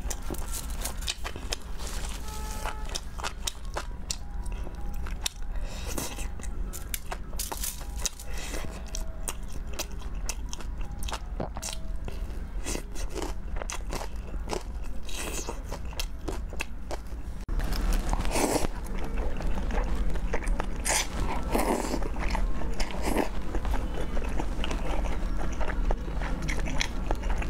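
Close-miked eating: bites and crunchy chewing of fried, breaded skewered street food, a dense run of sharp crunches. About two-thirds through, the sound jumps louder with a change to eating from a pot of spicy soup, chewing with fuller, louder mouth sounds.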